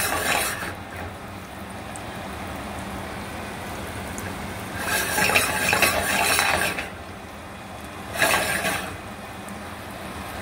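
Butter, minced scallion whites and ginger sizzling gently in a stainless steel sauté pan on a gas burner. Twice, about five seconds in and again near the end, the pan is swirled over the grate: each time the sizzle swells with metal scraping and clinking on the grate.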